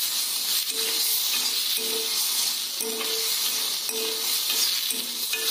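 Chopped tomatoes sizzling in a hot kadai while a metal turner stirs and scrapes them, with short scrapes against the pan about once a second over the steady sizzle.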